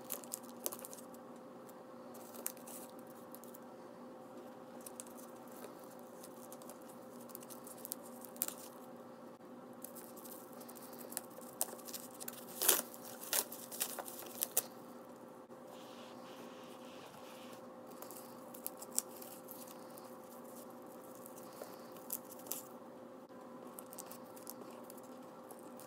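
Protective plastic wrap and tape on a new handbag's handles crinkling and tearing as hands peel it off, in scattered soft crackles with a denser run about halfway through. A faint steady hum lies underneath.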